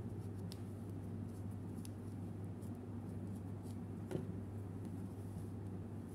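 Faint handling sounds of a crocheted yarn pencil topper and a pencil, with small scattered clicks over a steady low hum. About four seconds in there is a sharper knock as the pencil is picked up off the wooden table.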